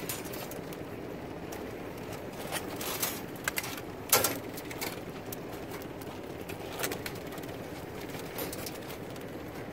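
Handling noise from sorting Dungeness crabs: a few short clicks and knocks of a plastic crab gauge, crab and crab ring being handled, the loudest about four seconds in, over a steady background hiss.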